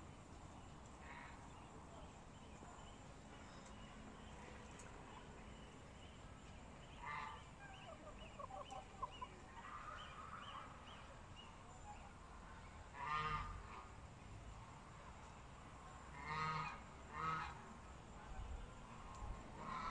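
Chickens calling: a few short, nasal, honk-like squawks spread out over the stretch, with two close together near the end, over faint softer clucking.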